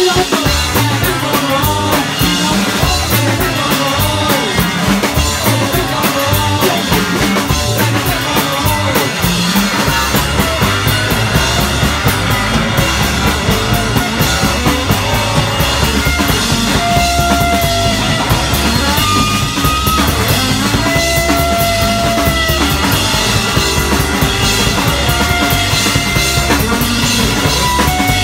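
Live rock band playing without vocals: electric guitar, electric bass and drum kit. The low end fills out about ten seconds in, and long held lead-guitar notes ring out over the beat in the second half.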